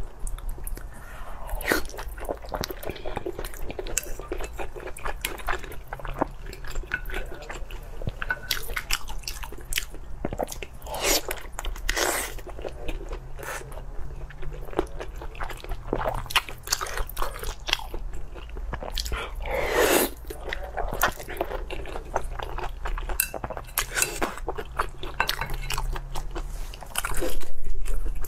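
Close-miked eating of braised meat in sauce: biting and chewing with wet smacking and clicking mouth sounds throughout, louder for a moment near the end.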